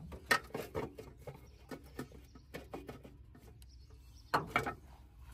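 Sheet-metal air cleaner housing, filter element and lid being fitted onto a carburetor: clusters of short clanks, clicks and scrapes, the loudest about a third of a second in and again near the end.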